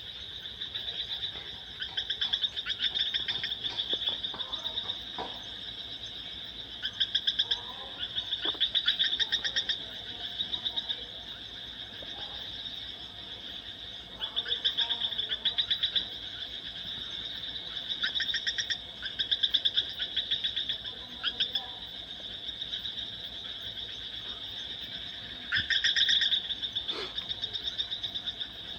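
A chorus of high-pitched trilling animal calls: a steady trill runs throughout, and louder, rapidly pulsed bouts break in every few seconds.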